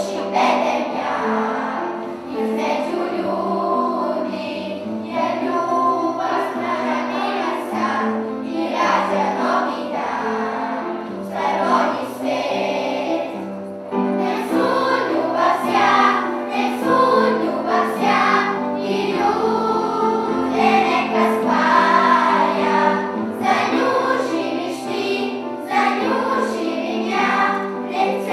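A children's choir singing a song together, accompanied by acoustic guitars, the singing continuous throughout.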